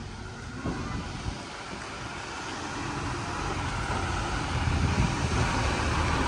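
Heavy multi-axle truck's diesel engine running as the truck moves slowly, growing steadily louder toward the end.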